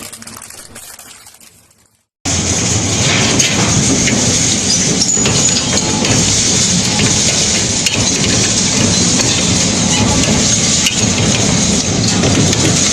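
Hammer crusher at work: a loud, dense, unbroken rattle and crackle of material being smashed, starting abruptly about two seconds in after the previous sound fades out.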